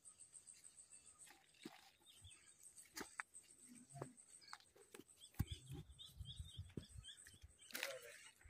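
Quiet outdoor ambience: faint bird chirps and a fast, high pulsing that stops about three seconds in, with scattered small clicks. From about halfway through, low rumbles of wind or handling on the phone microphone.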